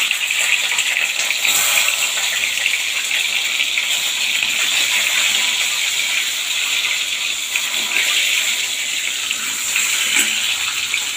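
Peeled boiled eggs frying in hot oil in a pan: a steady sizzle with fine crackling.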